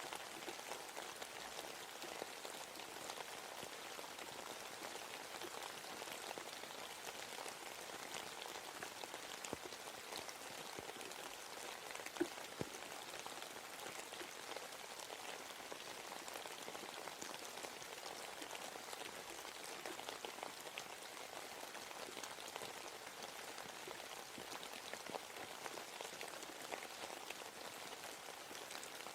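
Steady rain falling in a forest, with many small, separate drops pattering and one sharper, louder drop about twelve seconds in.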